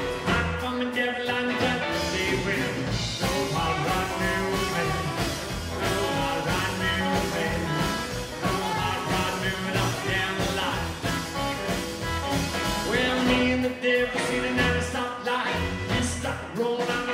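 Live rockabilly band playing: upright double bass, drums, electric and acoustic guitars, with a steady beat.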